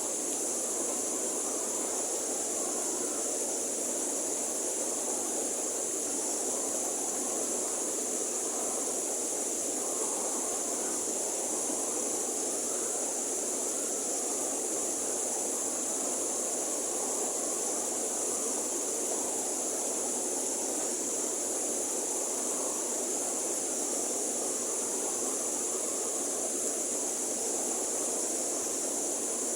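River water flowing steadily, an even unbroken rush, with a constant high hiss alongside.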